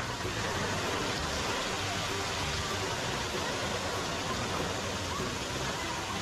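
Water pouring in a steady curtain from the rim of a mushroom umbrella fountain and splashing into a swimming pool: an even, unbroken hiss of falling water.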